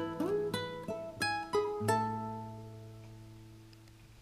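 Background music on plucked strings: a short run of picked notes, then a last note about two seconds in that rings out and slowly fades away.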